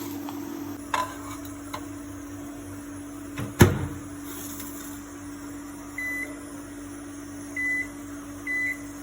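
A microwave oven being worked: latch clicks and the door knocking shut, then three short keypad beeps. A steady low hum runs underneath.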